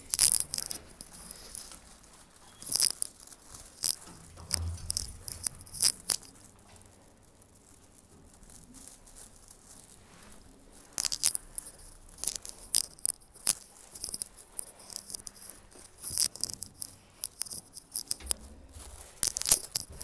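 Keys jangling and rattling in irregular bursts, with a quieter stretch of several seconds in the middle.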